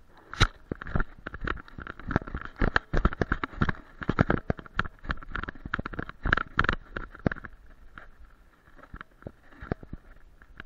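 Knocks, rattles and scrapes of a harness-mounted action camera jostled on a running, playing dog, with brush scraping past. The knocks come thick and fast for about seven seconds, then thin out to a few scattered ones.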